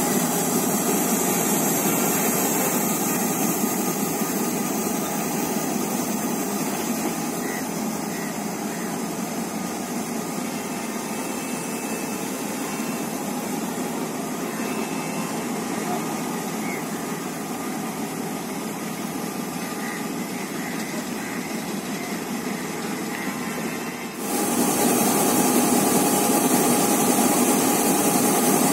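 Class M7 diesel-electric locomotive's GM 8-645E V8 two-stroke diesel engine running steadily. It eases off slightly over the first several seconds, then becomes abruptly louder about 24 seconds in, with a steady tone over the engine noise.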